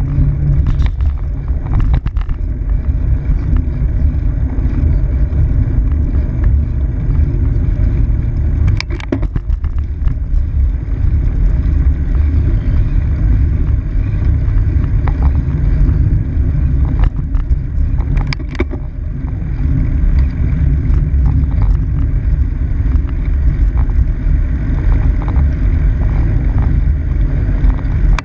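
Steady low rumble of wind buffeting and tyre roll picked up by a handlebar-mounted camera on a moving bicycle, with a few sharp rattles of the bike over bumps around nine and eighteen seconds in.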